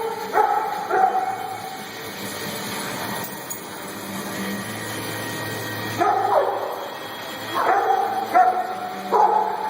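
A dog barking and yelping in short, high calls, some falling in pitch: two near the start, a pause of several seconds, then a run of five or so from about six seconds in.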